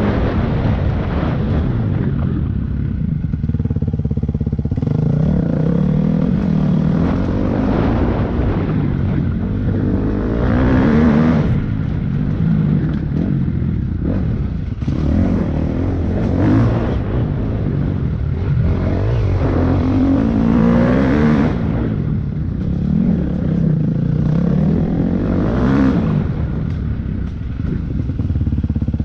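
Off-road motorcycle engine heard close up from the bike while riding, the revs climbing and dropping over and over as the throttle is opened and closed, with stronger surges every few seconds.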